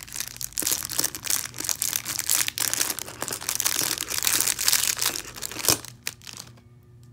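Thin clear plastic bag crinkling as it is worked open one-handed and an acrylic keychain is slid out of it, with one sharp click about five and a half seconds in before the crinkling dies down.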